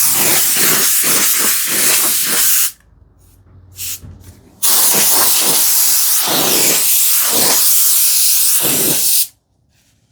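Dust being cleared off the freshly toothed backs of wooden tambour slats, heard as loud hissing in two long passes with a short one between.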